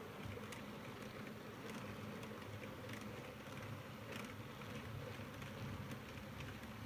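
H0-scale model tank wagons rolling along the track: a steady low hum of small metal wheels on rail, with scattered irregular clicks.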